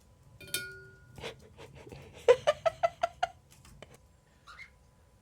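Cockatiel on a brass-trimmed ceiling fan: a sharp tap, typical of its beak rapping the brass, leaves a brief ringing tone, then comes a quick run of about seven short pitched sounds and, near the end, a short rising chirp.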